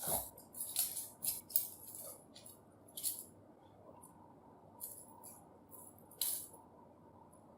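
Balisong (butterfly knife) being flipped: the handles clack and the pivots clink in a quick run of sharp metallic clicks over the first three seconds, then a few scattered clicks.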